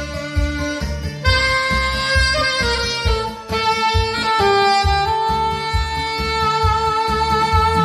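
Alto saxophone playing a slow melody with long held notes over a backing track with a steady beat.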